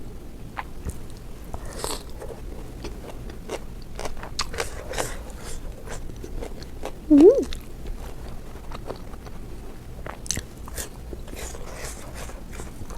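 Close-miked biting, crunching and chewing of food, with many short crunchy clicks, while eating a spicy ramen noodle salad with fried chicken livers and gizzards. A brief hummed vocal sound about seven seconds in.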